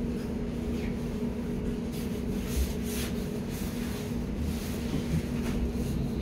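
Steady two-tone electrical hum with ventilation noise inside a Hamburg U-Bahn DT5 car standing at a platform, with a few faint clicks.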